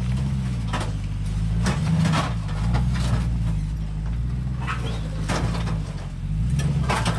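Jeep Gladiator's engine running at low revs, rising and dipping slightly as it crawls up a rocky ledge, with several sharp knocks and crunches scattered through.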